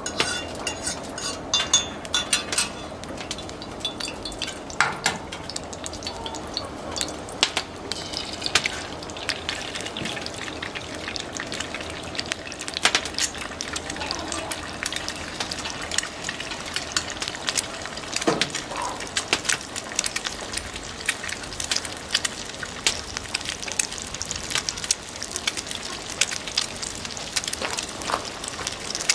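Egg sizzling in a frying pan over a wood fire, with a fork scraping and clinking in the pan now and then and the burning wood crackling underneath: many small sharp crackles over a steady frying hiss.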